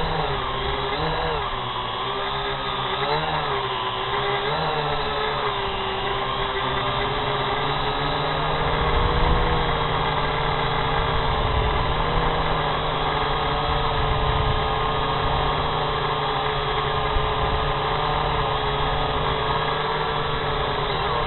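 Small drone's electric motors and propellers whining steadily, the pitch wavering up and down a few times in the first five seconds as the drone manoeuvres, then holding level.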